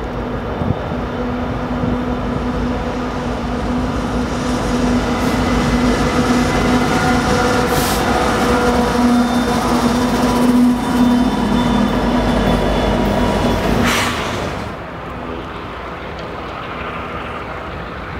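Union Pacific ES44AC and SD90/43MAC diesel-electric locomotives passing close at the head of a double-stack container train, their engines running with a steady low hum that grows louder as they go by. About 15 seconds in, the sound drops away to a quieter, duller rumble.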